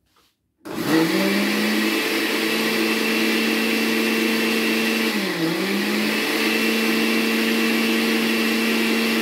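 Oster countertop blender switched on, its motor spinning up and then running steadily as it blends diced fresh coconut with water into coconut milk. Its speed dips briefly about five seconds in and picks back up.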